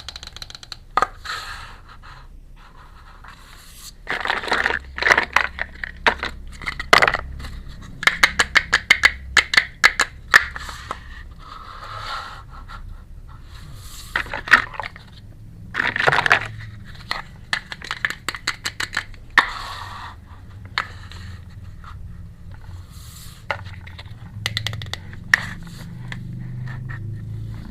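Miniature toy kitchen pieces and their packaging handled close to the microphone: irregular scraping, clicking and tapping with short bursts of rustling, over a steady low hum.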